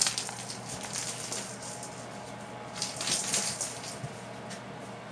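Persian kittens scampering and batting a toy ball on a vinyl floor: soft pattering and scuffling, with a few light clicks at the start and a busier burst of scuffling about three seconds in.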